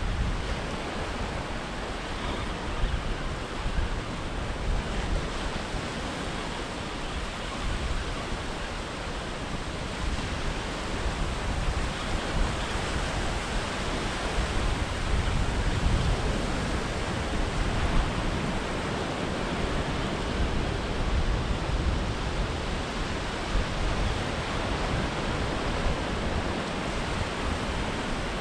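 Steady wash of small waves breaking and running up a flat sandy beach, with wind rumbling on the microphone.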